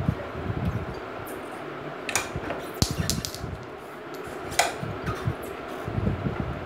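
A handful of sharp metal clicks and knocks as hands work at a motorcycle's rear drum brake and brake arm, the loudest about four and a half seconds in, over a steady background hum.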